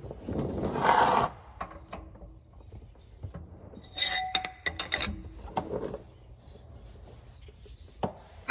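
Hand tools handled while working on a rear differential's plugs: a rough scraping rub in the first second, then a quick cluster of sharp metallic clicks with a brief ring about four seconds in, and a few lighter knocks after.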